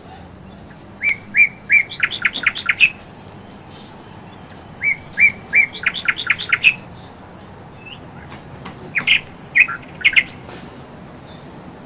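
A bird singing the same phrase twice: three clear whistled notes followed by a quick run of about seven notes. A shorter group of calls comes near the end.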